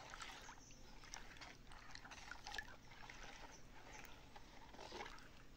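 Faint swishing of a spatula stirring soapy liquid in a plastic basin, with scattered small clicks.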